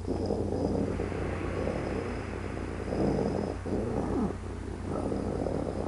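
A person imitating an annoyed wolf's growl: a low, rasping growl drawn out in several long stretches with short breaks between them.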